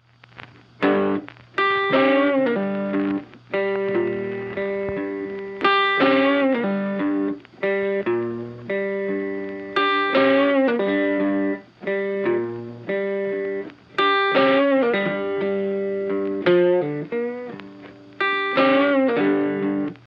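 Outro background music: a plucked-string melody of sharply struck, decaying notes with pitch slides. The phrase repeats about every four seconds, starting about a second in.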